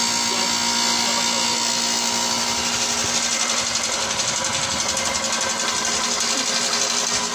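Bench grinder motor running steadily with a toolbit being ground against its wheel; from about three seconds in a brighter high-pitched grinding hiss joins the hum.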